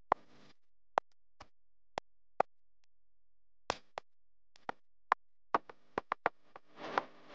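A wooden spoon stirring chopped onion in a metal pot, knocking sharply against the pot in a string of knocks at uneven intervals. A brief scraping rustle comes near the end.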